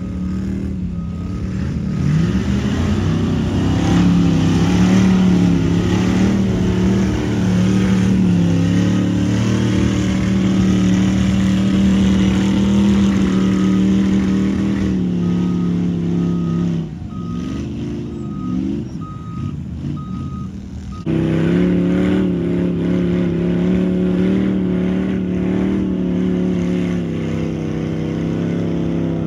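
Mud truck engine running hard at high, steady revs. It eases off for a few seconds with a brief rise and fall in pitch, then comes back up sharply. An evenly repeating high beep sounds over it for several seconds before the engine comes back up.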